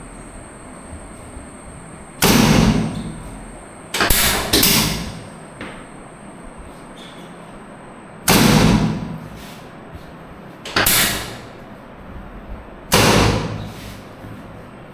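Six loud thuds from chiropractic adjustment thrusts on a treatment table, each tailing off quickly, two of them in quick succession about four seconds in.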